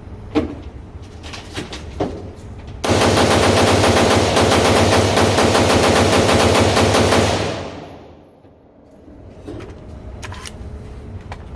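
AR-15 rifle in 5.56 fired as a rapid mag dump: an unbroken string of quick shots starting about three seconds in and lasting about four and a half seconds, with the echo dying away after the last shot.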